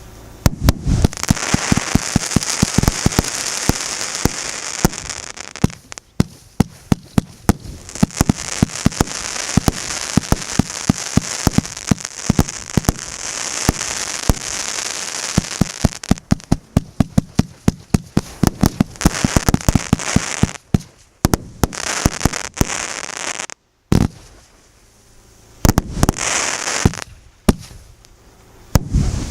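A professional fireworks battery (cake) of 1-, 1.2- and 2-inch shells firing: volleys of sharp launch shots and bursts, several a second, over stretches of steady high crackle, with a brief break about two-thirds of the way through.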